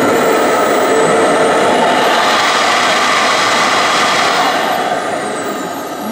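Model jet turbine running: a loud, steady rushing roar with a high-pitched whine that climbs and then falls away.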